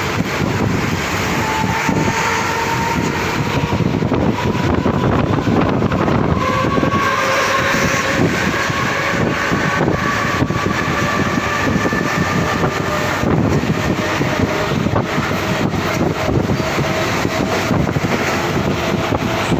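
Mumbai suburban electric local train running, heard from aboard: a dense, steady rumble of wheels on the track, with a faint motor whine that rises slowly in pitch.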